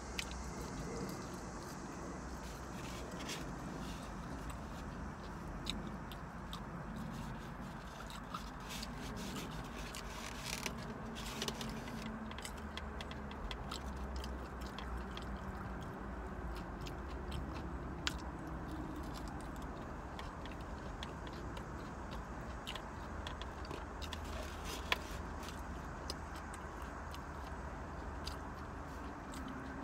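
Close-up eating of fried catfish and french fries: chewing, with scattered small clicks and scrapes from handling the styrofoam takeout trays, over a steady low hum in the car cabin.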